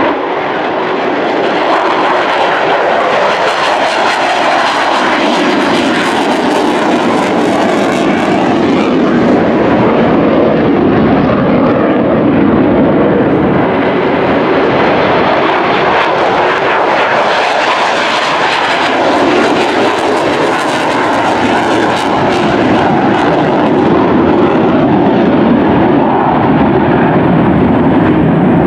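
Military fighter jets taking off and climbing out at full power, a loud continuous jet roar. Its tone sweeps slowly up and down as the aircraft move overhead and away.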